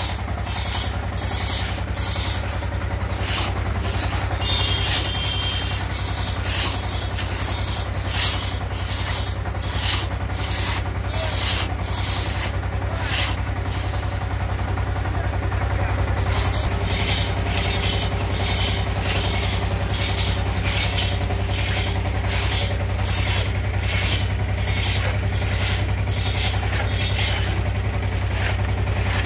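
Two-man hand saw rasping back and forth through a teak slab, about two strokes a second, with a pause of about two seconds midway. A steady low drone runs underneath.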